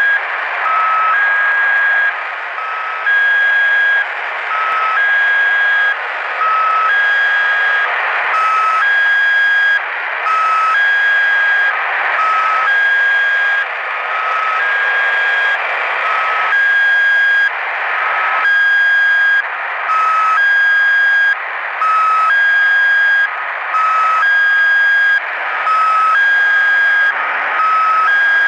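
The 'Squeaky Wheel' (S32) shortwave utility station's channel marker on 5473 kHz, received in upper sideband on a Grundig YB 500 and heard through its speaker: two different tones, a higher and a lower, in a short sequence repeated with a brief gap about every two seconds, over steady shortwave hiss.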